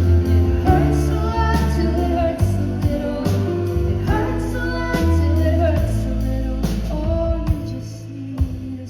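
Live pop music: a woman singing a melody over sustained low bass notes and held chords.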